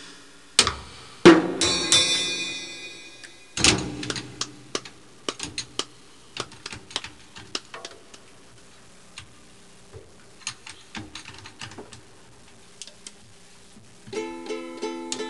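A small child bashing a drum kit with a drumstick: a few loud hits with a long cymbal-like ring in the first seconds, then irregular lighter taps and hits. Near the end a toy guitar sounds a few quick repeated notes.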